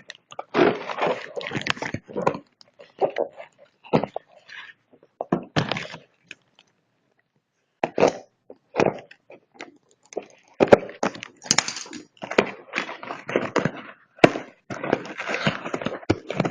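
Packaging being handled and opened: irregular rustling and crinkling with light knocks and clicks, denser near the end, with a short pause about halfway through.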